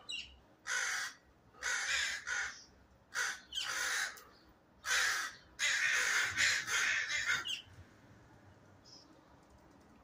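Crows cawing in a string of repeated calls, alarm calls mobbing an owl that has caught a bird. The calls die away near the end.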